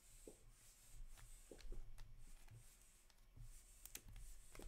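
Faint, scattered clicks and light rubbing of hockey trading cards being handled and flipped between the fingers, over a low room hum. A slightly louder cluster of clicks comes about four seconds in.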